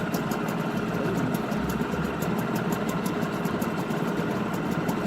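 Nissan 5 hp two-stroke outboard motor idling steadily with a rapid, even firing beat, still running on the fuel left in it after the fuel has been shut off.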